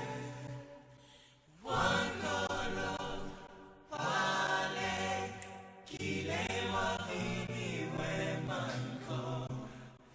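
Background music: a song with chanted, choir-like vocal phrases, each lasting a couple of seconds, coming in after a brief lull near the start.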